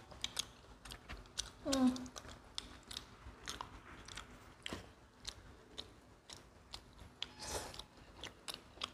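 Close-miked chewing and biting of pizza slices, full of small irregular wet mouth clicks. A brief hum of a voice comes about two seconds in.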